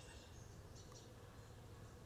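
Near silence: faint outdoor background in the gap between a Cooper's hawk's single sharp 'kik' calls, with a few faint high chirps near the middle.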